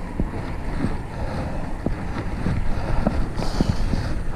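Wind buffeting an action camera's microphone on a moving fixed-gear bicycle, over steady tyre and road rumble, with a few light clicks and rattles scattered through.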